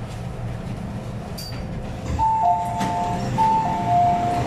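Two-tone door chime of an MTR M-Train, a high note then a lower note, sounding twice about halfway through. Underneath it runs the steady low hum of the stopped train and the station.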